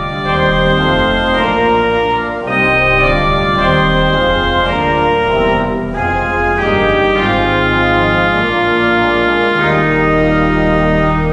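Organ music: slow, sustained chords over a held deep bass note, the chords changing every second or two.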